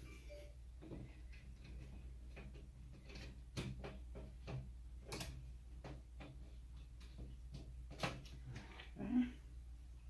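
Scattered clicks and knocks of steel server-rack frame pieces and screws being handled and fitted by hand. A few louder knocks stand out, about three and a half, five and eight seconds in.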